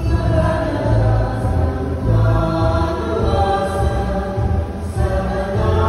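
Church choir singing a hymn with sustained notes over a low bass accompaniment, typical of the entrance hymn that opens Mass.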